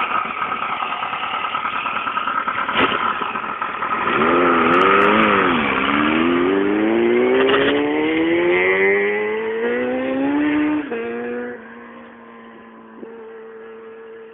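Kawasaki ZX-12R's inline-four engine idling, then revving hard as the bike pulls away about four seconds in, its pitch climbing steadily for several seconds. Near eleven seconds the pitch drops twice at upshifts and the engine settles into a steady, fainter tone as it rides off.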